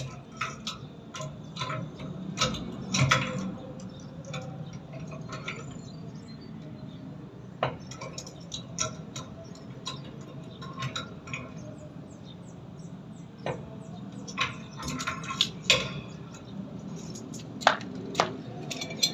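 Irregular light clicks, clinks and knocks of tools and small parts being handled during a repair, bunched in a few flurries, over a low steady hum.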